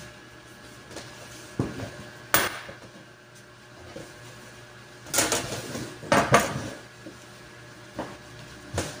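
Cloth and pattern pieces rustling as they are handled on a wooden worktable, with a few short metallic clinks and knocks of scissors and metal rulers against the table.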